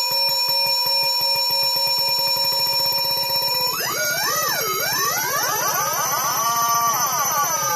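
Home-built MFOS Echo Rockit analog synthesizer holding a steady electronic tone with a fast pulsing underneath. About four seconds in, as a panel knob is turned, the pitch breaks into wavering up-and-down sweeps, each repeated in overlapping echoes.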